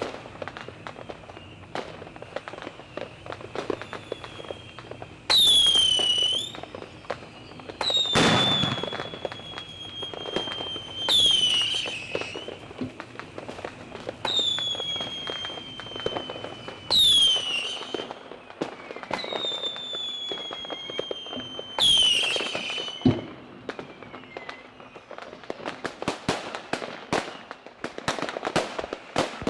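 Fireworks going off: a run of loud high whistles, each dropping sharply in pitch and some trailing into a long, slowly falling whistle, about every three seconds, over continual crackling and small bangs. The crackling thickens into a rapid string of pops near the end.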